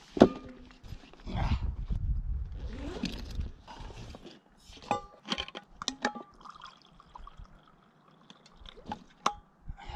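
Tea being poured from a flask into a cup, with sharp clicks and knocks of the flask, lid and cup being handled.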